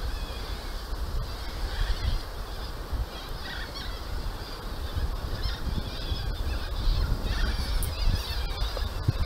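A flock of parrots calling as they settle to roost, many short high screeches and chatters that grow busier near the end, over a low wind rumble on the microphone.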